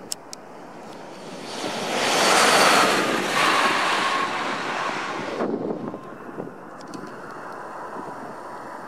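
Large tour coach passing close by at about 140 km/h: a rushing sound of tyres and air builds, peaks a few seconds in, then drops off sharply, leaving a lower steady rush with wind on the microphone.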